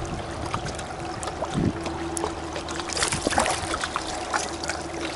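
Small splashes and dripping water as a hooked Murray cod is held at the surface beside the boat and grabbed by hand, with scattered small clicks and a faint steady hum underneath. The splashing is busiest about three seconds in.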